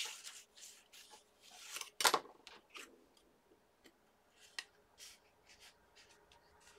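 Bone folder rubbed over cardstock in short, uneven scraping strokes, burnishing glued paper down over a hidden paper clip so it sticks. About two seconds in there is a sharp clack and scrape as the folder is put down on the cutting mat, then faint rustling as fingers press the paper.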